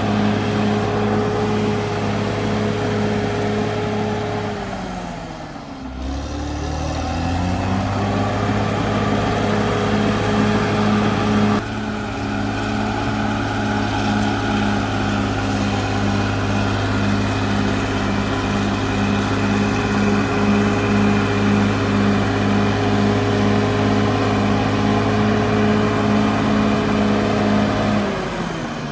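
Caterpillar D6R XL bulldozer's diesel engine running steadily under load. Its revs drop sharply about five seconds in and pick back up within about two seconds, then drop again near the end.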